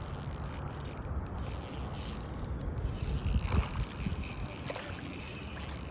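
Fishing reel being cranked to bring in a hooked bass, a steady mechanical whirring and clicking from the reel.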